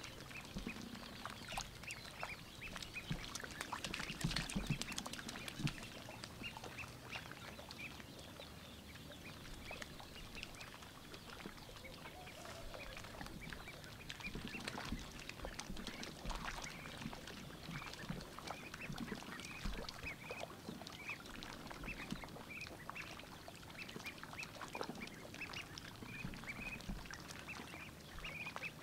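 White ducklings dabbling in a muddy puddle: bills slurping and splashing in the shallow water, with frequent short high peeps.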